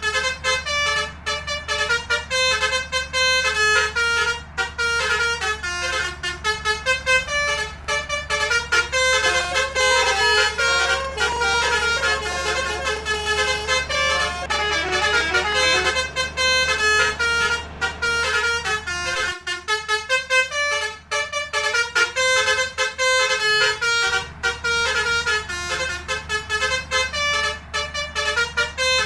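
Indonesian bus 'telolet' multi-tone musical horn playing a melody of quick stepped notes, over the steady rumble of the running bus.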